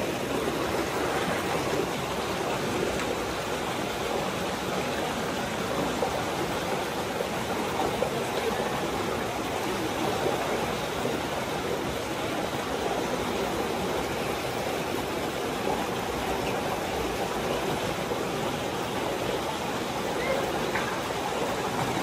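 Steady, unbroken rush of river water flowing.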